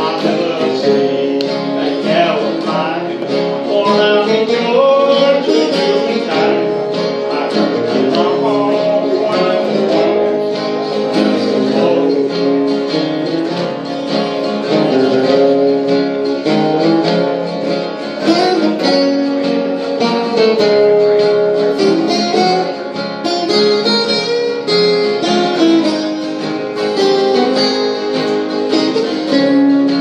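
Acoustic guitar playing an instrumental break in a country song, strummed and picked. A man's voice sings briefly near the start, without recognisable words.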